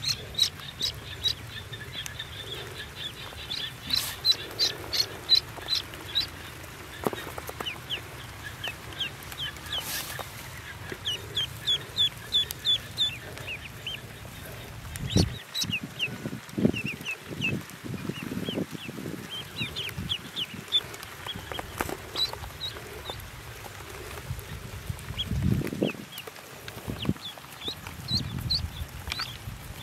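Newly hatched ducklings peeping, a run of short high chirps in quick series, with rustling in the nest straw from about halfway and again near the end.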